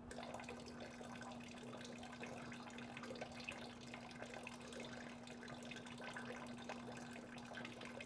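Faint trickle of water running through a home-built heater and splashing into a catch bucket, over a steady hum.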